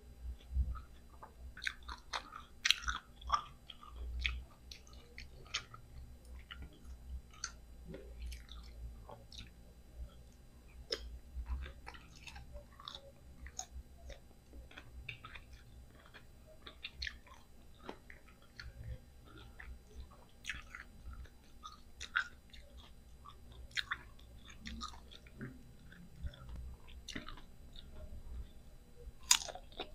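A person biting and chewing firm mango slices, with irregular crisp crunches.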